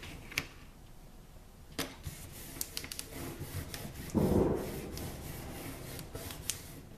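Cardstock being handled and pressed together: a few light clicks and taps, then paper rubbing against paper about four seconds in as a textured cardstock layer backed with tape adhesive is pressed down onto a card base.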